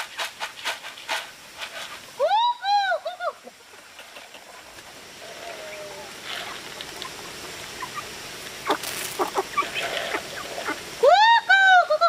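Farm fowl calling: a group of three loud arching calls about two seconds in and another group of three near the end, with a run of quick clicks at the start and scattered small sounds in between.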